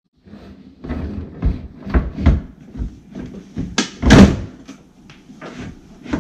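Knocks and thumps of a stainless-steel GE dishwasher being shoved and worked into its under-counter cabinet opening, the loudest and longest about four seconds in.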